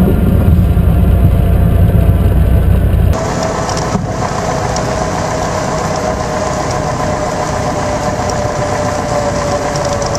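Piper Warrior II's four-cylinder Lycoming engine and propeller running at low power during the landing rollout, heard inside the cabin. About three seconds in the sound drops in level and turns from a deep rumble to a thinner drone, with a steady tone that slowly falls in pitch.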